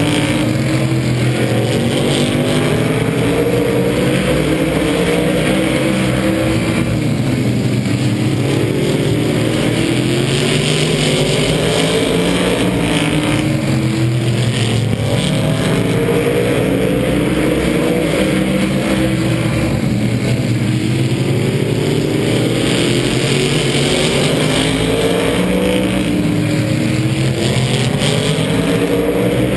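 A field of supermodified race cars' V8 engines running laps around the oval, several at once, their sound swelling and fading in waves as the cars pass around the track.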